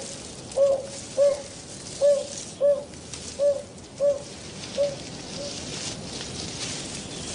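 Narina trogon calling: a series of short, low hoots, roughly in pairs, growing fainter and stopping about five and a half seconds in.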